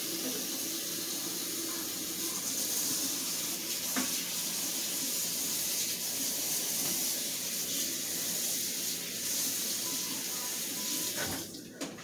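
Steady rushing of water running, as from a kitchen tap, cutting off about a second before the end.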